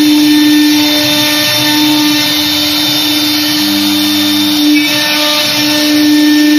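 1325 CNC router spindle running with a steady tone while its bit carves a relief pattern into a wood door panel, the noise of the cut running underneath. A second, lower tone joins for about a second midway.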